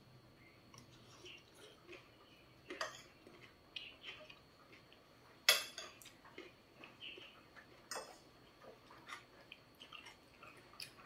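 A fork and spoon clinking and scraping against a plate now and then, with soft chewing between. There are a few sharp clinks, the loudest about halfway through.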